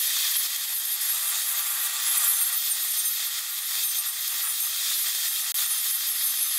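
Spinning table saw blade shaving the edge of a wooden disc as the disc is turned against it: a steady hissing grind of wood being trimmed, with the saw's whine underneath.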